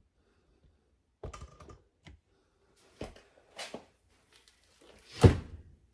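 Scattered clicks and knocks of things being handled, about seven in all, with one louder, deeper knock about five seconds in.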